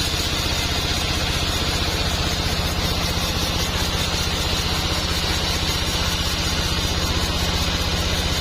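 Sawmill machinery running steadily at an even pitch: a constant engine hum with a steady high whine over it, with no change in load.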